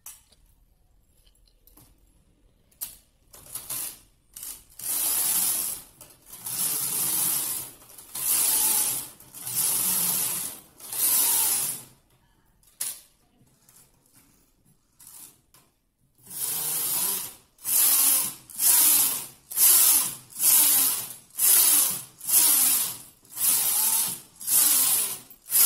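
Punchcard flatbed knitting machine carriage pushed back and forth along the needle bed, each pass a rasping swish as a row is knitted. About a dozen and a half passes come in two runs, roughly one a second, with a short pause of a few clicks in between.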